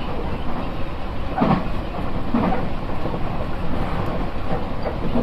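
Nankai electric commuter train running at speed, heard from inside the car: a steady rumble of wheels on rail and running gear, with a couple of louder clatters about one and a half and two and a half seconds in.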